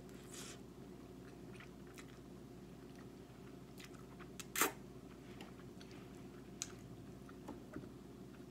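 Close-up mouth sounds of someone eating angel hair pasta in Alfredo sauce: chewing and slurping noodles, with scattered small wet clicks. A loud sharp click comes about halfway through. A steady low hum runs underneath.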